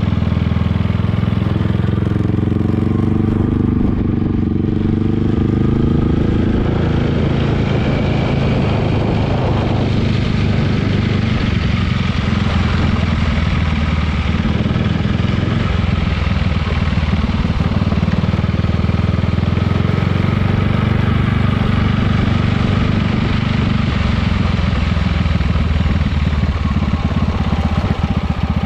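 Yamaha XMAX 300 scooter's single-cylinder engine running under way, its pitch easing down over the first few seconds, then holding fairly steady. This is a test ride of a new rear mudguard, which the rider says no longer rattles against the engine.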